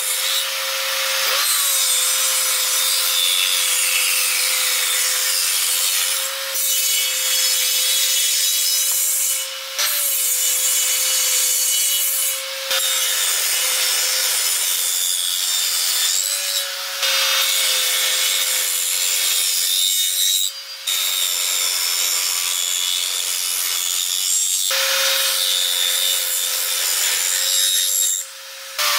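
Benchtop table saw running with a steady whine while ripping pine pallet boards, cut after cut. There are several brief dips between passes as each piece clears the blade.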